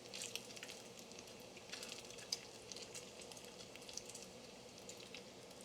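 Bacon strips frying in a pan, sizzling faintly with scattered small pops and crackles.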